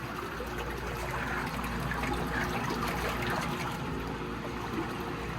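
Water trickling steadily into the work tank of a Fanuc 1iA wire EDM as the tank fills, over a faint steady machine hum.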